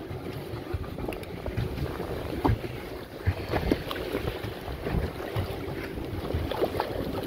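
Water sloshing and splashing against a pedal boat, with irregular small knocks and wind buffeting the phone's microphone.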